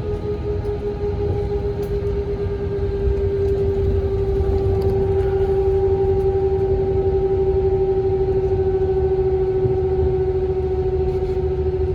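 Airbus A321 cabin noise while taxiing: a steady low rumble with a strong, steady whine over it. It grows slightly louder about four seconds in.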